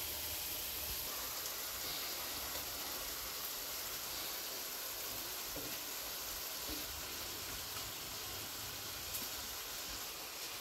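A pan of fish kofta curry sizzling steadily on the stove.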